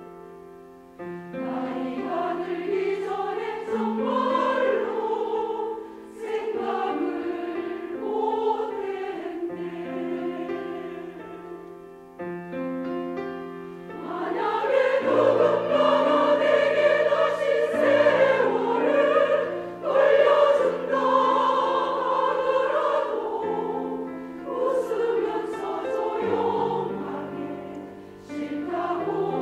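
Women's choir singing in parts with grand piano accompaniment, in long held phrases; the choir swells to a louder, fuller passage about halfway through.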